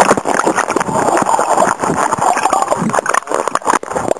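Water rushing and splashing over a camera that dips in and out of the water on a moving jet ski, with a rapid, irregular clatter of slaps and knocks.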